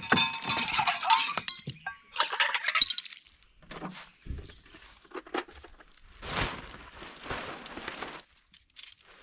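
A plastic water bottle crackling and clinking as water is poured from it into metal camp mugs, then a few light knocks and a broad rustle from a nylon tarp being handled.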